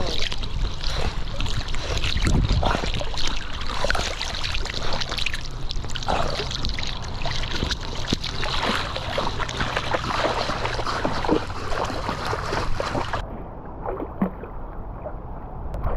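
Water splashing and sloshing right at a golden retriever puppy's body-mounted action camera as the puppy swims and paddles, with many small sharp splashes. About three seconds before the end the sound turns duller and more muffled.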